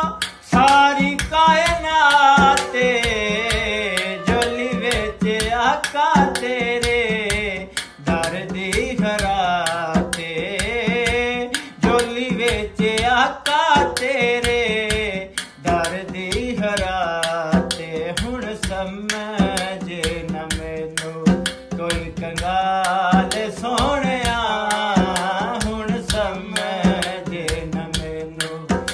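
A man singing a Punjabi folk song in long, wavering held notes, over quick hand-drum strokes keeping time.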